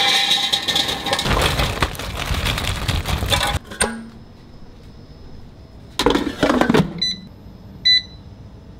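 Frozen broccoli florets rattling as they are poured from a plastic bag into an air fryer's metal basket. About six seconds in the basket clunks as it is slid back into the air fryer, and near the end the touch panel beeps twice as its buttons are pressed.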